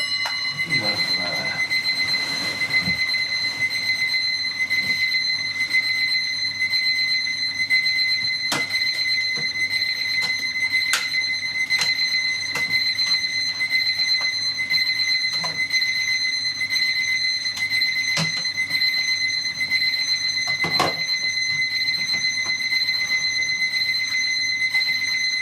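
Electronic alarm clock ringing with a steady high-pitched tone, with a few short knocks over it.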